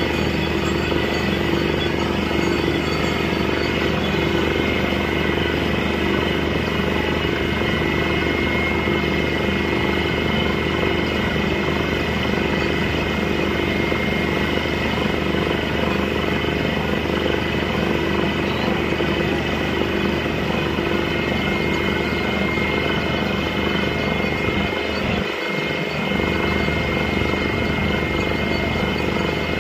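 Truck-mounted borewell drilling rig running hard: a steady engine and compressor drone with a high whine, while air-blown water and rock cuttings gush out of the bore.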